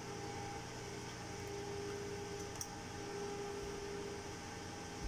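Steady hum with a faint hiss, with a faint click about halfway through.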